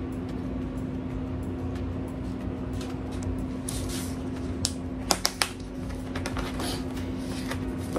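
A plastic Cool Whip tub being handled and its snap-on lid pried open: a short rustle, then a quick run of sharp plastic clicks about five seconds in, over a steady low hum.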